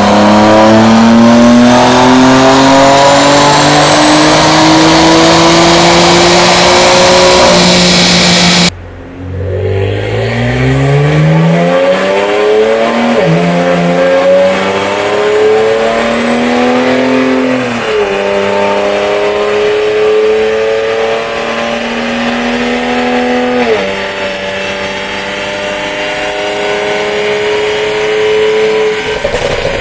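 A BMW engine held flat out on a chassis dynamometer, its pitch slowly climbing, cuts off abruptly about nine seconds in. Then a BMW E92 335i coupe's turbocharged straight-six is run up through the gears on the dyno rollers: the pitch climbs and drops back at three upshifts about five seconds apart, with roller noise underneath.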